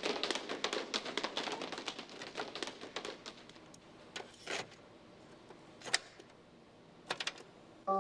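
Children tapping and clattering paper plates: a rapid patter of many light taps that thins out after about three seconds. Then a few separate plastic clicks from a portable cassette player as a tape is loaded.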